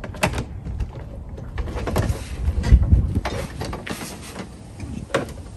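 A new car battery being set down into the engine bay's battery tray by hand: a series of clunks and knocks of the plastic case against the tray and bracket, heaviest about two and a half to three seconds in.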